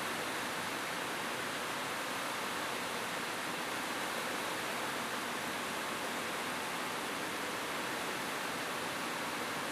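Steady heavy rain falling on a roof: an even, unbroken hiss of drops with no separate patters or thunder standing out.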